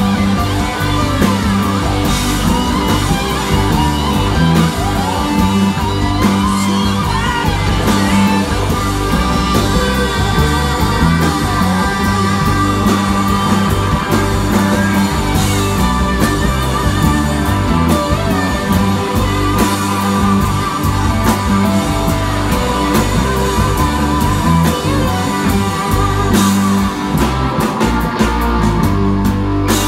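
Live rock band playing loud: two electric guitars over bass guitar and a drum kit, with a voice singing.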